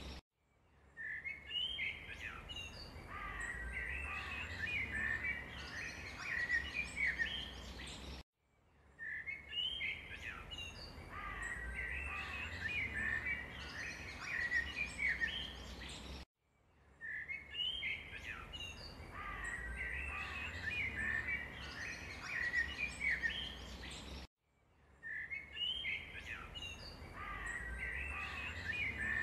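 Many short bird chirps and twitters over a low rumble, laid on as a loop: the same few seconds of birdsong repeat about every eight seconds, each time after a brief silent gap.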